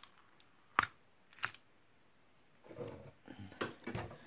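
Clear plastic protective film on a diamond painting canvas being handled: two sharp clicks about a second apart, then crinkling near the end.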